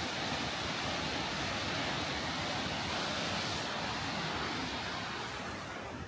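Kegon Falls, a tall waterfall, rushing as a steady, even roar of falling water, growing fainter near the end.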